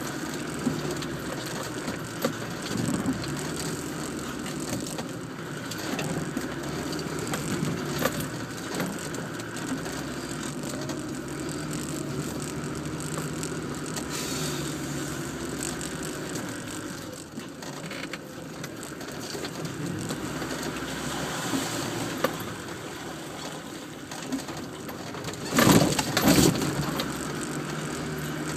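Land Rover Defender engine running at low speed as it crawls over rough off-road track, with the body and fittings rattling and knocking over the bumps, heard from inside the cab. A loud jolting clatter comes twice in quick succession near the end.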